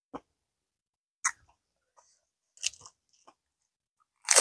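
Close-miked eating sounds: a few short, separate mouth noises, then a loud crisp crunch near the end as she bites into a raw cucumber slice.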